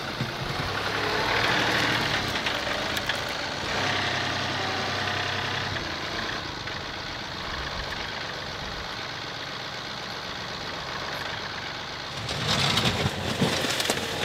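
John Deere 2038R compact tractor's three-cylinder diesel engine running as the front loader moves up to the trench. Near the end, a load of dirt and rocks pours out of the loader bucket into the trench.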